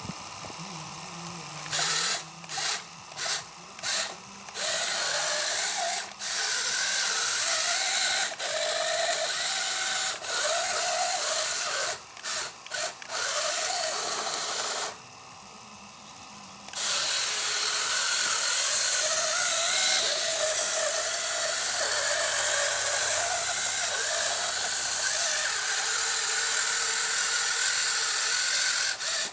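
Small geared electric motors of a radio-controlled scale model combine harvester whirring. They start and stop in several short bursts at first, then run longer with brief pauses.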